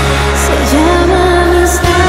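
Loud recorded show music: a melody line gliding over held bass notes, with two light cymbal-like taps.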